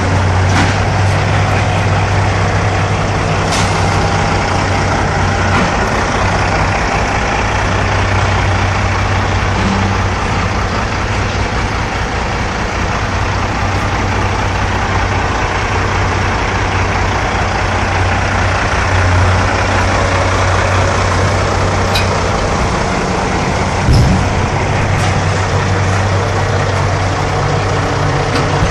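Heavy diesel engines of a dump truck and a Caterpillar excavator running steadily, with a few sharp knocks and a louder thump late on.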